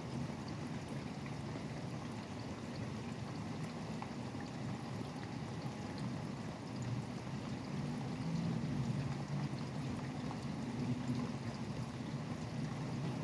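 Steady rain falling, with the low rumble of highway traffic under it that swells briefly a couple of times in the second half.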